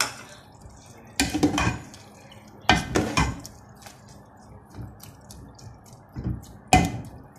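Long-handled metal spoon stirring wet karela and onion in an aluminium pot, clanking and scraping against the pot in a few separate strokes: about a second in, around three seconds in, and twice near the end, the last the loudest.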